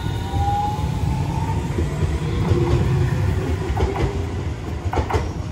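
Hiroshima Electric Railway Green Mover APEX low-floor tram passing close by: its wheels rumble on the rails, with a faint rising motor whine that fades about half a second in. Several sharp clacks follow, the loudest near the end, with wind buffeting the microphone.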